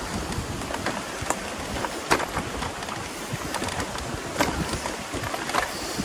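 Riding a Yamaha YPJ-TC electric mountain bike over a rough dirt trail: steady noise of tyres on the ground and wind on the microphone, with scattered clicks and knocks from the bike rattling over bumps, the sharpest about two seconds in.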